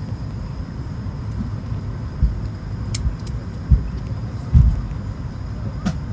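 Steady low rumble of an airliner cabin parked at the gate, its air supply running, with three dull low thumps around the middle and a couple of faint clicks.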